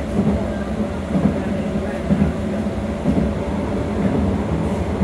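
Electric train's AC traction motors and running gear heard from inside the passenger saloon: a steady, continuous low rumble.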